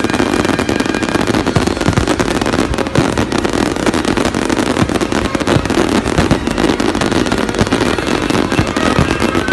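Fireworks show: a dense, unbroken barrage of many shells bursting, crackling and popping at once, with heavier bangs mixed in.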